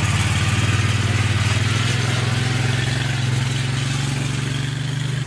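John Deere Gator utility vehicle's engine running at a steady, even pitch as it drives along towing a trailer.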